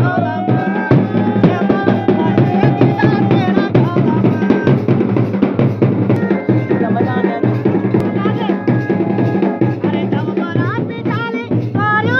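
Garhwali dhol and damau drums playing a fast, steady rhythm together with band baja, long held melody notes riding over the drumming. A singing voice comes back in near the end.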